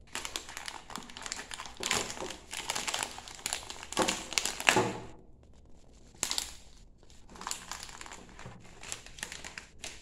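A packaged tea pouch crinkling as hands grip it and pull it out of its box, in dense rustles for about five seconds, loudest just before a brief pause, then a sharp crackle and more crinkling as it is set down.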